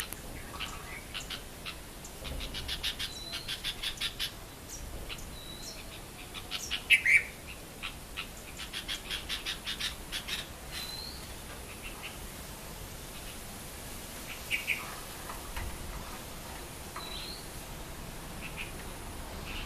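Garden birds calling. Two runs of rapid, sharp chirps at about six a second come early and again around the middle, with a brief louder call between them and scattered short rising notes.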